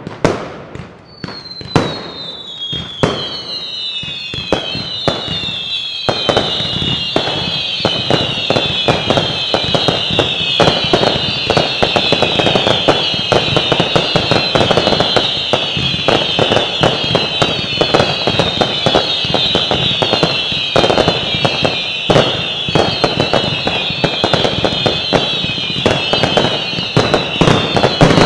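Professional fireworks display: a few sharp bangs at the start, then many overlapping whistles, each falling in pitch, over dense, continuous crackling and popping bursts.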